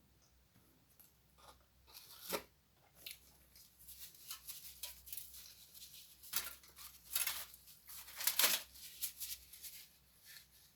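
Close-up crisp tearing and crackling of donuts and pastries being pulled apart and eaten, in irregular bursts. The loudest bursts come about two, six, seven and eight seconds in.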